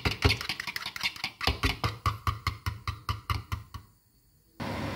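Eggs mixed with grated summer truffle being beaten by hand in a bowl, the utensil clicking quickly against the bowl about four or five times a second. The beating stops shortly before the end, followed by a brief gap and then a steady hiss.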